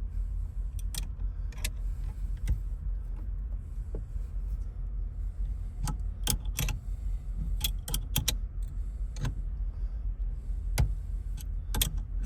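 Irregular sharp metallic clicks and taps of hand tools and small parts being worked on a steering column during an ignition lock replacement, over a steady low rumble.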